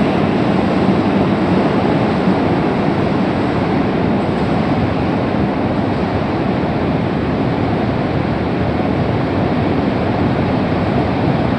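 Steady, even rushing noise in an underground railway tunnel as a departing Keisei 3100 series train runs away into it, its rumble blended into the hiss. The noise holds level while the train recedes.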